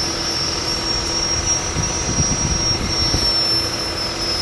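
Light modified pulling tractor's engine running at the start line without pulling, with a high steady whine over a low rumble; the whine swells and eases slightly about two seconds in.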